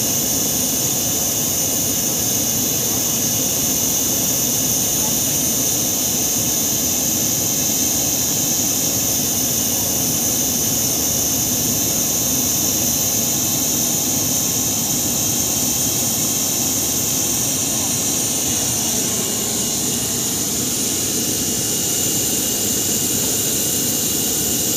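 Jet turbine noise: a steady high-pitched whine over a loud, even hiss and low rumble, unchanging throughout.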